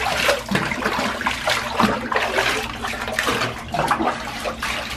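Bathwater splashing and pouring as a small dog is rinsed in a bathtub with scoops from a plastic cup, in irregular splashes.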